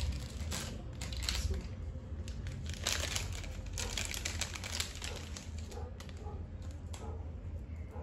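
Paper wrapping being handled and unwrapped around a piece of jewellery, crinkling and rustling in irregular handfuls, busiest about three to five seconds in.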